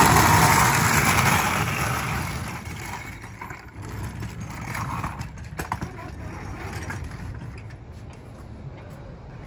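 Wheeled canvas mail hamper cart rolling over pavement, a loud rumble from its wheels that fades after about two seconds into a quieter roll with a few knocks and rattles of the cart frame.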